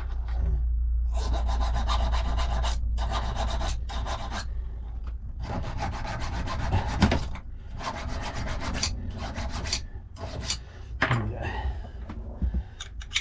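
Key-cutting machine running with a low motor hum while its cutter grinds metal off a safe key in several passes of about a second each, with short gaps between them. The key is being trimmed a fraction so it will turn the lock.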